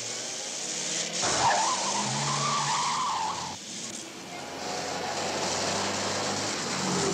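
A car pulls away hard. About a second in, its tyres squeal for a couple of seconds over the engine's running note.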